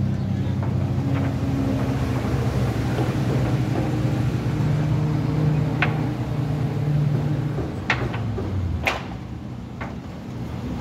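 A vehicle's engine running, its pitch rising slightly in the middle and falling away about three-quarters of the way through, with a few sharp clicks and knocks over it.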